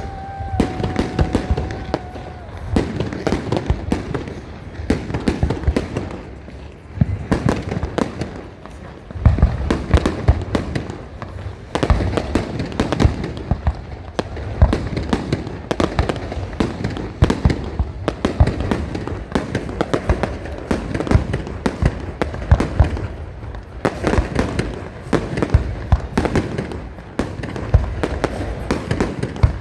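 Fireworks display: a dense, irregular run of bangs and crackles, with louder booms scattered through it. A steady whistle sounds over the bangs for the first two seconds or so.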